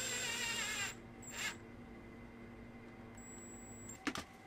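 Ryobi cordless drill driver driving a screw into a wall plug in brick, its motor whining with wavering pitch for about a second and then a brief second burst. Two faint clicks near the end.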